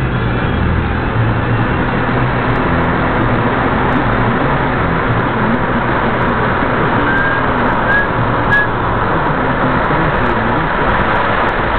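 Steady road and engine noise of a car driving, heard from inside the car. A few faint short high squeaks come just past the middle.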